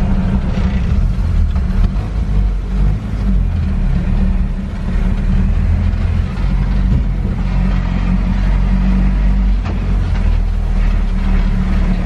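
Vintage Bedford van's engine running as it is driven, heard from inside the cab, with a steady low drone whose pitch rises and falls a few times.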